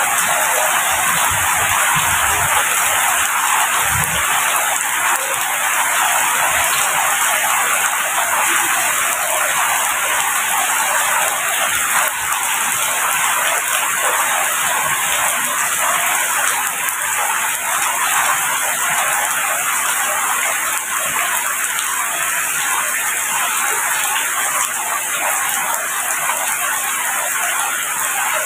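Rain falling steadily, a dense, even hiss with no breaks.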